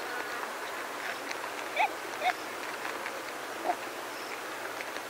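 Warthogs feeding on short grass, giving three short squealing grunts, two close together about two seconds in and one near four seconds, over faint clicks of grazing and a steady hiss of wind in longer grass.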